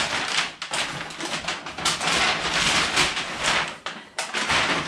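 Large brown kraft paper bag rustling and crinkling as a wrapped gift box is pulled out of it and the bag is lifted away.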